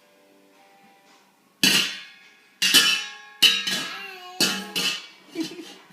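A baby banging on a musical instrument, striking clashing clusters of ringing notes about once a second, each dying away. The strikes start about a second and a half in.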